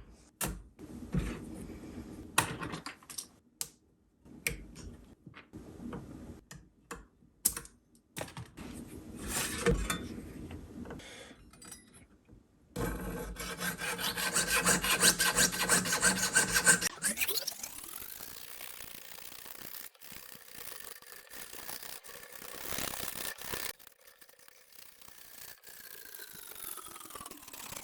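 Small hand tools working sterling silver pieces: intermittent filing and scraping strokes, then a busier stretch of rasping. After that a small motorized tool spins up to a steady whine and winds down near the end.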